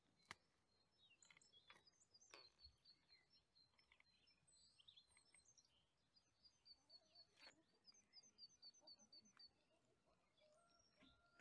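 Faint birdsong: scattered high chirps, then a quick run of repeated high notes in the second half. A few sharp clicks stand out against it.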